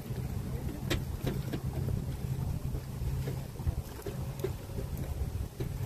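Wind rumbling on the microphone, with small splashes and lapping of shallow water throughout.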